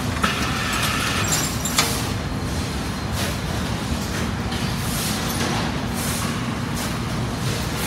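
Steady hum and rumble of industrial laundry machinery and conveyors running, with a couple of sharp clanks in the first two seconds.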